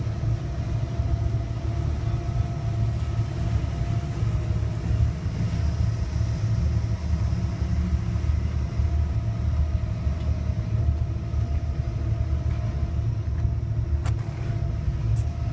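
Boat engine running steadily, a constant low rumble with a faint even hum over it.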